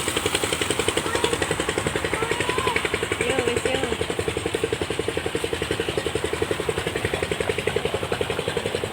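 An engine running steadily at an even speed, with a regular chugging beat of about eight pulses a second.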